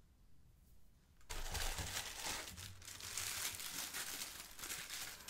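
Plastic packaging crinkling and rustling as a statue part is unwrapped, starting about a second in and running on densely.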